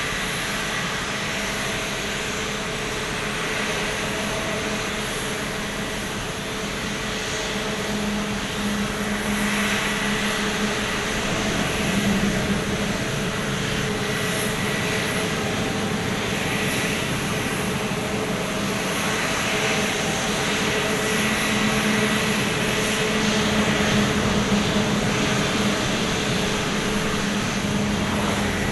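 Airliner jet engines idling: a steady roar with a constant hum and a high whine.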